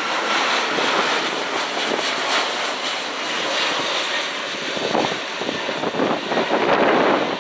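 Jet airliner engines running with a steady rush and a faint whine as the plane passes on its landing. Toward the end, irregular gusts of wind buffet the microphone.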